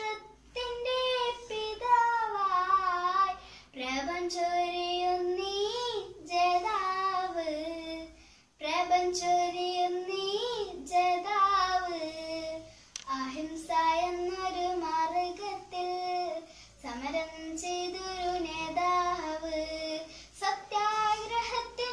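A young girl singing a Malayalam song solo and unaccompanied, in phrases of a few seconds with short breaks for breath between them.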